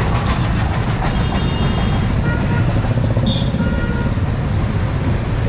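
Steady street traffic noise from passing motorbikes and other vehicles, dominated by a heavy low rumble, with a few faint short tones around the middle.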